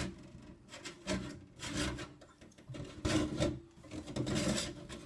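Handling noise: rubbing and scraping in about four short bursts as the small object in hand is moved around close to the microphone.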